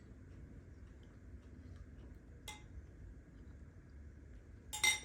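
Dishes or metal utensils clinking: one sharp, ringing clink about halfway through, then a louder quick cluster of clinks near the end.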